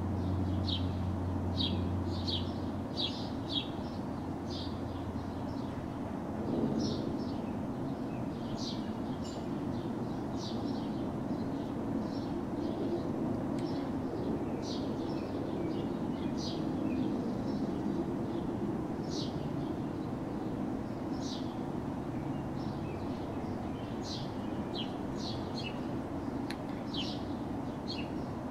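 Small birds chirping in short, repeated calls over a steady low hum of distant city traffic. A low drone fades out about three seconds in.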